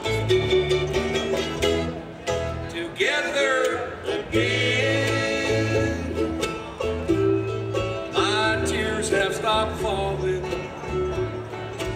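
Bluegrass band playing live: banjo, mandolin and acoustic guitar picking over a bass line that alternates between notes, with a couple of sliding runs about three and eight seconds in.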